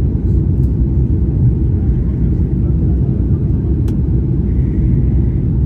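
Steady low rumble of a Boeing 737 MAX airliner heard from inside the passenger cabin, with a single sharp click about four seconds in.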